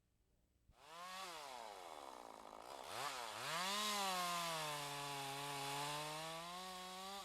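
Chainsaw cutting into a standing tree. It comes in about a second in, the engine pitch sagging and recovering twice as the chain bites, then runs steadily under load.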